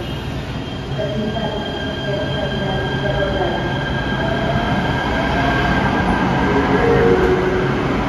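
Electric light rail train pulling out of an underground station and gathering speed: a steady electric whine from its drive, with wheel and rail rumble growing louder as it accelerates.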